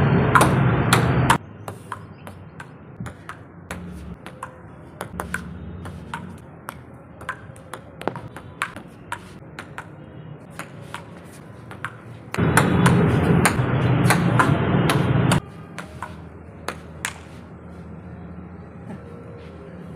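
Table tennis rally: a celluloid ping-pong ball clicking sharply off paddles and the tabletop in quick, irregular strikes. A spell of loud rushing noise covers the first second or so, and another runs from about twelve to fifteen seconds in.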